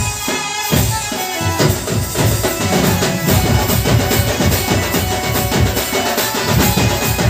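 Band party playing dance music: drums beating a fast, steady rhythm under a melody of held notes.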